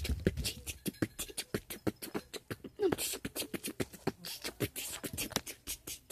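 A boy beatboxing into a phone: a quick, loosely rhythmic string of mouth pops, clicks and hissed breaths.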